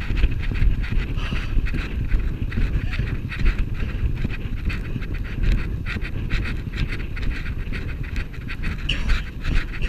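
A horse galloping over grass: hoofbeats with rhythmic hard, panting breaths, and wind buffeting the microphone.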